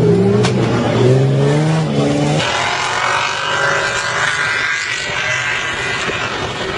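SUV engine revving hard on sand dunes, its pitch stepping up as it climbs. About two and a half seconds in, the sound cuts abruptly to a different, more distant engine run under a steady rushing noise.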